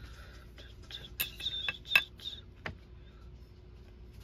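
A few light taps and clicks, the sharpest about two seconds in.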